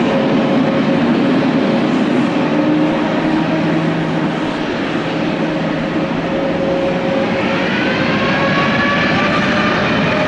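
Jet airliner's engines running loud at takeoff power, a dense steady noise; about seven seconds in, whining tones rise in pitch as the engines spool up.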